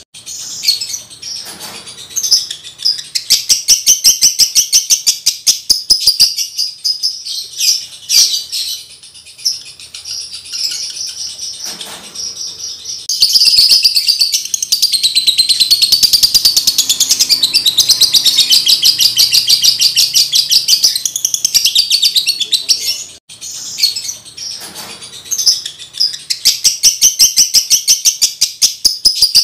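Male Fischer's lovebird in breeding condition singing: long runs of fast, high, rapid-fire chattering chirps. The longest run lasts about nine seconds in the middle, with shorter, quieter chirping between the runs.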